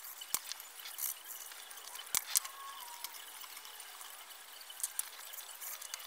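Small metal parts of a disassembled clock movement being handled on a bench: two sharp clicks, one just after the start and one about two seconds in, with a few fainter ticks later over a light hiss, as brass gears and plates are picked up and set down.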